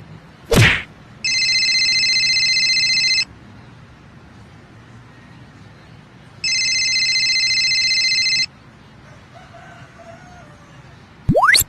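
An electronic telephone ring sounds twice, each ring a steady buzzing tone about two seconds long, with a pause of about three seconds between them. A short falling swoosh comes just before the first ring, and a quick rising swoosh near the end.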